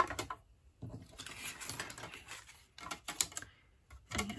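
Clear acrylic cutting plates clicking and tapping as they are handled and set down, with rustling and sliding of plastic and cardstock between the clicks.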